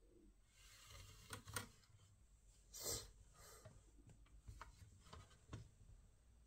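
Faint rubbing and scraping with a handful of small clicks and knocks, the loudest a short scrape about three seconds in.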